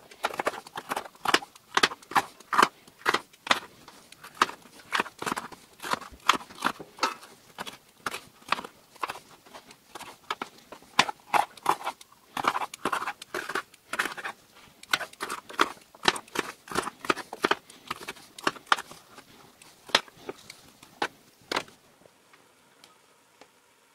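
Chef's knife chopping a red bell pepper on a plastic cutting board: irregular sharp knocks of the blade on the board, about two a second, stopping near the end.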